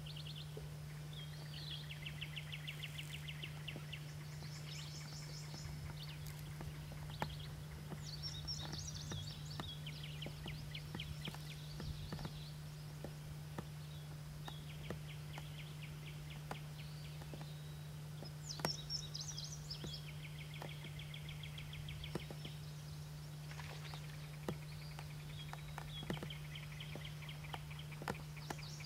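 A songbird singing a repeated song of a few high notes followed by a fast trill, several times with pauses of a few seconds between songs. A steady low hum runs underneath, with scattered small clicks.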